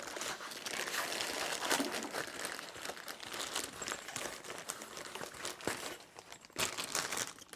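Packaging and a tripod carrying bag being handled and searched, a continuous crinkling rustle with scattered light clicks.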